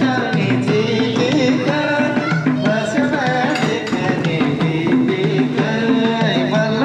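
Music: a song with a melody over a steady, repeating drum and bass pattern.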